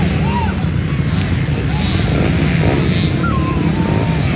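Several motocross dirt bike engines running at low speed in a steady, dense rumble, with a crowd's voices and short calls over it.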